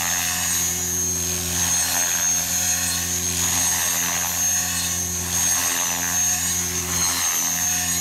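Radio-controlled helicopter in flight: a steady rotor hum with a constant high-pitched whine over it, the rotor speed held even throughout.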